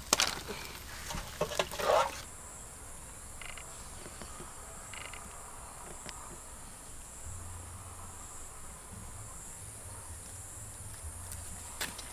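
A steady high-pitched chorus of insects chirring. It starts after a short run of sharp clicks and crackles in the first two seconds, which are the loudest sounds.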